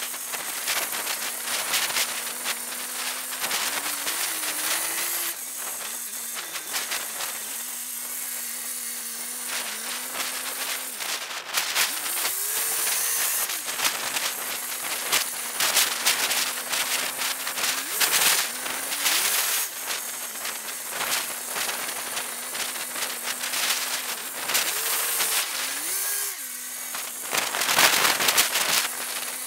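Caterpillar 14G motor grader's diesel engine running steadily under load, its pitch rising several times as it revs up to push. Gravel crackles and crunches as the blade and tyres work the pile.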